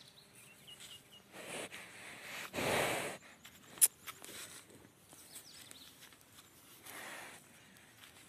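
A bull breathing out hard close to the microphone: a few noisy exhales, the loudest about two and a half seconds in and lasting under a second, with a sharp click just before four seconds.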